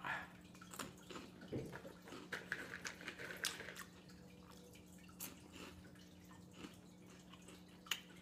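Chewing a mouthful of crunchy Takis and Hot Cheetos: a run of soft, crackly crunches over the first few seconds, then a few scattered crunches, over a faint steady hum.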